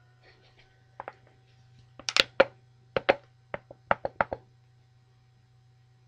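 A quick run of about a dozen sharp knocks or taps, starting about a second in and stopping a little past four seconds, the loudest pair near the middle.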